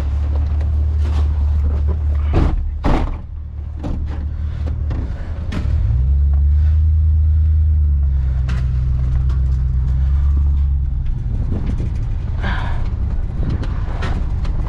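Vehicle engine running with a steady low hum. It picks up in pitch and level about six seconds in as the vehicle speeds up, and eases back near eleven seconds. A few short knocks and rattles sound over it.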